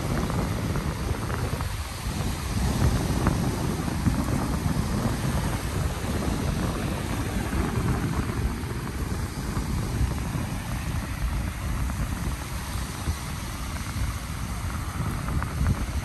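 Surf washing steadily onto a beach, with wind buffeting the microphone as a low rumble.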